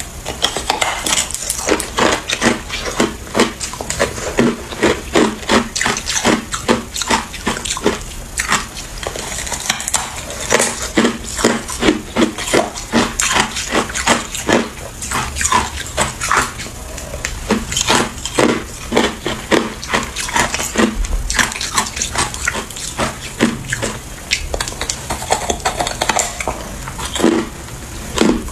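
Person biting into and chewing a large block of hard clear ice: a continuous irregular run of crisp, cracking crunches, about two or three a second.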